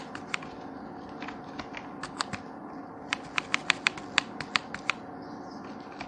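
Computer keyboard keys clicking as text is edited: scattered single keystrokes, then a quick run of about a dozen presses between three and five seconds in, over a faint steady hum.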